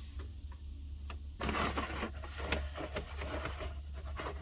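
Plastic scraping and light clicks of a toy dollhouse elevator being worked by hand, with a longer scraping stretch about one and a half seconds in, over a steady low hum.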